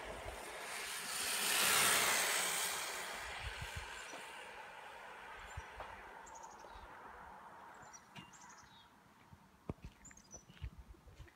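HSP RC car on foam tyres making a high-speed pass: a rushing noise that swells to a peak about two seconds in and then fades away over several seconds. Faint bird chirps and a few light clicks follow near the end.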